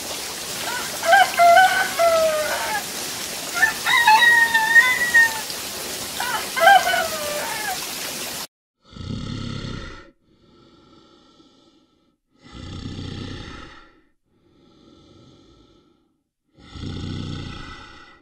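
Animal calls with a pitch that bends up and down, several times over a steady rain-like hiss. Then, after a cut, three loud, low, rough sounds about four seconds apart, like heavy breaths or grunts from a large animal, each followed by a faint one.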